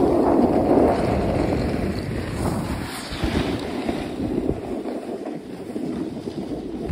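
Wind rushing over the microphone of a camera carried down the slope by a moving snowboarder, mixed with the hiss of snowboards sliding and carving through snow. Loudest about the first two seconds, then a little softer.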